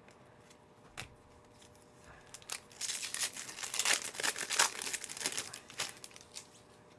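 Foil wrapper of a trading-card pack being torn open and crinkled: about three seconds of dense crackling that begins a few seconds in, after a single click about a second in.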